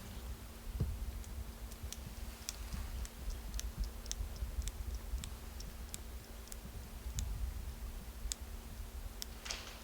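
Faint, irregular ticks and clicks, a few each second, over a low steady rumble.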